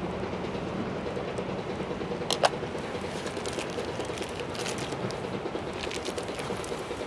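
A sharp metal clink about two and a half seconds in as a slab of bacon goes into the frying pan on a Winnerwell Nomad View wood stove. After it come scattered sizzling pops and crackles from the pan and the wood fire, over a steady low background hum.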